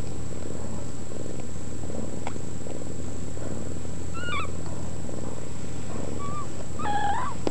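Hairless mother cat purring steadily while nursing her newborn kittens. The kittens give a few high thin squeaks, about four and six seconds in, and a louder one near the end.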